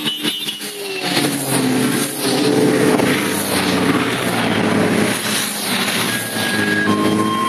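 A procession of motorcycles riding past at close range, several engines running at once with their pitch rising and falling as each bike goes by. A couple of steady high beeps sound near the end.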